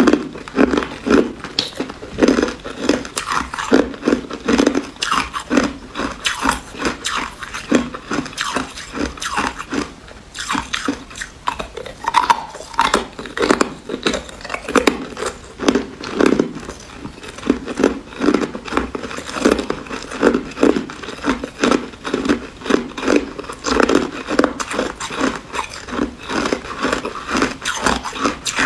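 Clear ice cubes being crunched and chewed in the mouth: a steady run of crisp crunches, about two or three a second.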